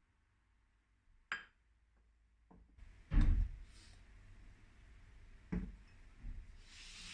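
Objects being handled and set down, likely kitchenware: a light click, a dull thud about three seconds in, two softer knocks, then a short hiss near the end.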